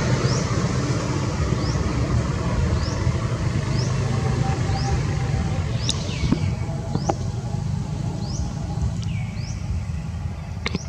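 Outdoor background: a steady low rumble with a short, high rising chirp repeating about once a second, and a few faint clicks.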